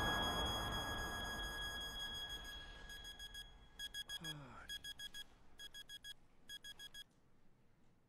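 Alarm clock beeping in quick bursts of four short beeps, about one burst a second, waking a sleeper. It starts about three seconds in, after a fading hum and tone, and stops about seven seconds in, with a short falling sweep in the middle.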